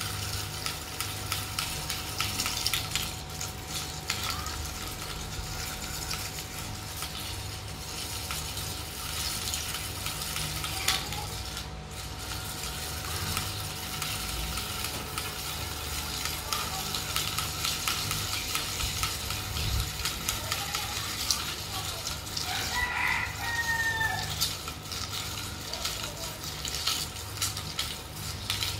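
Fishing reel being cranked to wind braided line onto its spool, a rapid run of small clicks. A rooster crows once toward the end.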